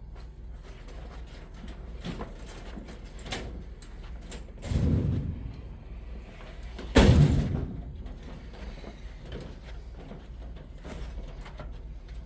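Work noises of heavy objects being handled: scattered light knocks, a heavy sliding scrape about five seconds in, then one loud bang about seven seconds in that dies away over about a second.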